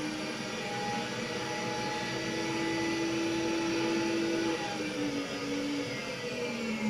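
Milling machine running as its cutter mills a slot in a block of 6061 aluminium: a steady machine noise with a held whine that drops slightly in pitch about four and a half seconds in.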